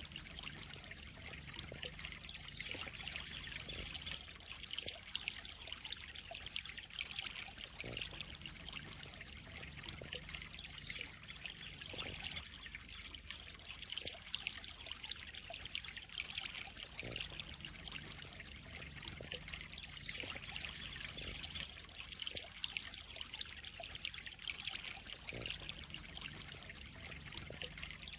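Steady trickling and splashing of water in a koi pond, with small irregular splashes scattered throughout.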